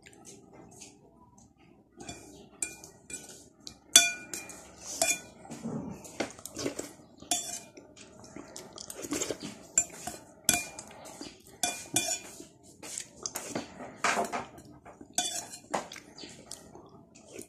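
Metal spoon clinking against a ceramic bowl while eating porridge: a string of sharp clinks with short ringing, the loudest about four seconds in.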